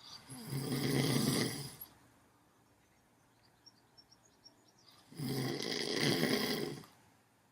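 A sleeper snoring: two long snores about four seconds apart, each lasting about a second and a half.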